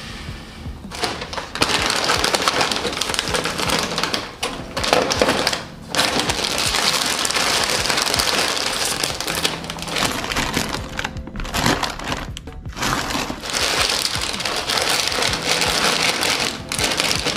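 Snack bags crinkling as chip bags and a plastic bag of peanuts are handled and packed into a plastic storage basket, with soft music underneath.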